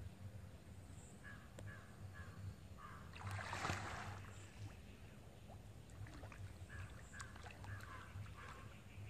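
Water splashing and sloshing about three and a half seconds in as a swimmer floating on his back moves his legs. A bird calls in runs of short repeated notes, a few a second, twice.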